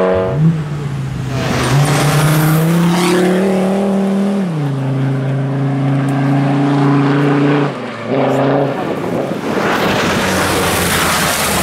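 Rally car engine under hard acceleration on a gravel road. Its note climbs for about four seconds, drops sharply, holds steady, then breaks off briefly near eight seconds. Near the end a loud rush of engine and gravel noise comes as a car passes close.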